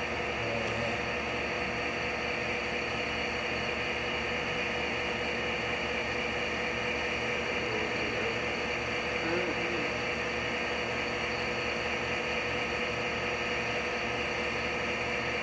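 Steady hum and hiss inside a subway rail car, with constant tones over an even rush of noise that holds level throughout.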